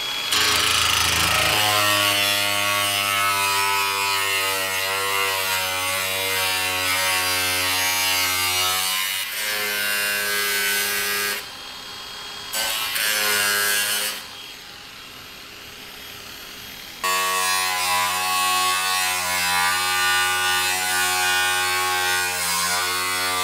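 Makita cordless angle grinder with a thin cut-off disc running at speed and cutting into a sheet-metal mudguard, a steady motor whine. It stops briefly a little before halfway, then drops away again for about three seconds before running and cutting again.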